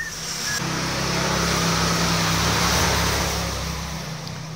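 Power drill spinning the flywheel of a Honda GX160 engine through a shaft on the flywheel nut, turning the magnet past the pickup to test the new CDI ignition for spark. A steady motor run starting about half a second in, swelling and then easing off near the end.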